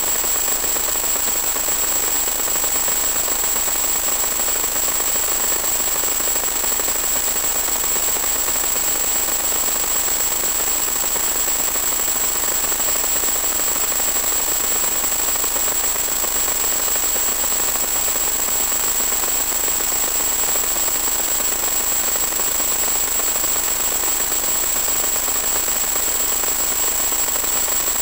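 Steady hiss with a constant high-pitched whine over it, the static of an analog FPV video link's audio channel rather than any motor or wind sound.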